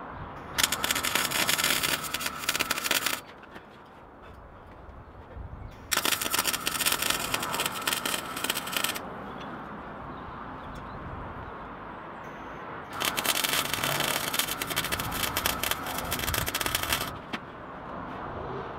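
Electric arc welder crackling in three bursts of a few seconds each, welding a serrated steel foot-grip strip onto a steel bicycle frame tube.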